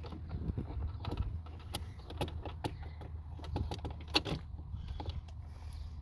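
Scattered light clicks and rattles from a minivan sliding door's inside handle mechanism being handled while it is oiled, over a steady low hum.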